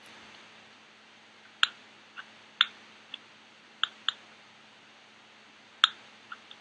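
A series of sharp, irregular clicks, about nine in all, three of them much louder than the rest, over a faint steady hiss.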